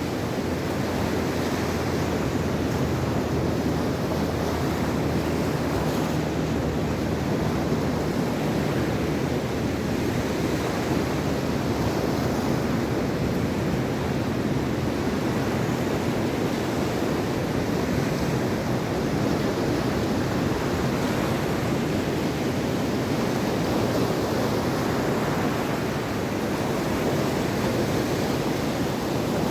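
Mediterranean Sea waves washing onto the shore in a steady, continuous rush, with some wind on the microphone.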